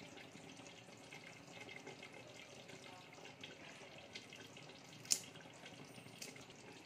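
Faint steady hiss of a pot of chicken korma simmering on low heat, with soft movements of a metal spatula in the aluminium pot. One sharp clink about five seconds in, and a smaller one a second later.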